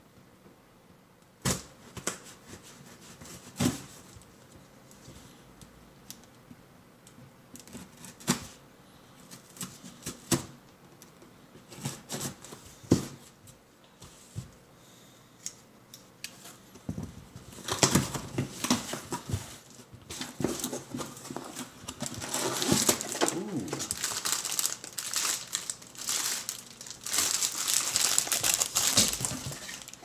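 A cardboard parcel being opened and unpacked by hand. First come scattered clicks and knocks of handling, then from a little past halfway a continuous crinkling and rustling of packaging as the contents are unwrapped.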